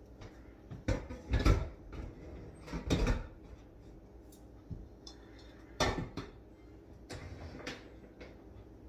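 A series of knocks and clatters of kitchen things being handled and set down, loudest about a second and a half in, with more around three and six seconds in.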